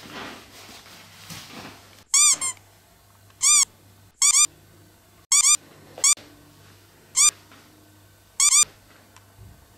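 Squeak sound effect: about eleven short, high squeaks, each rising then falling in pitch, some singly and some in quick pairs, spaced irregularly over several seconds.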